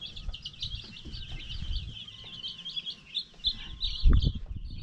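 A brooder full of baby chicks peeping nonstop, many high cheeps overlapping. A loud low thump near the end.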